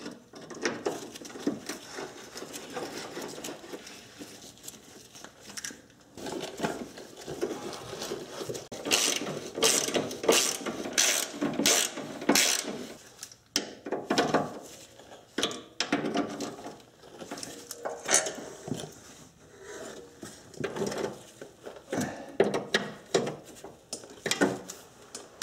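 Hand socket ratchet clicking as the sway bar bracket and end link bolts are run in and tightened, in quick runs of clicks with short pauses between strokes.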